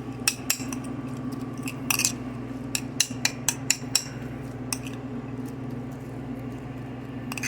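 A utensil clinking and scraping against a bowl while a sushi filling of chopped shrimp, imitation crab and spicy mayo is stirred: a run of sharp clinks, thickest in the first four seconds, then sparse. A steady low hum runs underneath.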